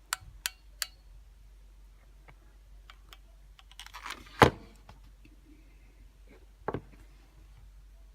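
Light clicks and taps of batteries and a hot glue gun being handled during gluing: a few small clicks in the first second, a sharp, louder knock about four and a half seconds in, and another near seven seconds.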